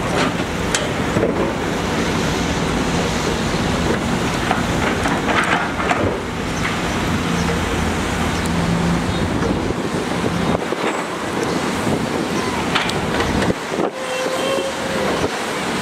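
Heavy construction machinery engines running, with scattered metallic clanks and knocks. The low engine rumble thins out about two-thirds of the way through.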